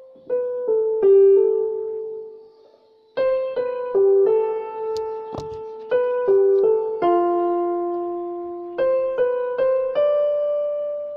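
Background piano music: a slow melody of single struck notes, each fading away after it is played, with a short lull a little after two seconds in.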